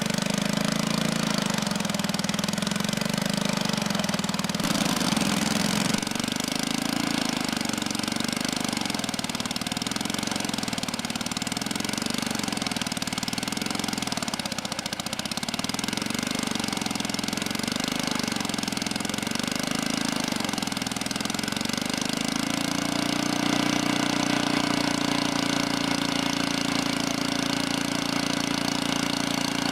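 Sawmill engine running steadily, its note stepping up about four seconds in. From about six seconds a high steady whine joins it, and the engine note wavers for a while before settling again near the end.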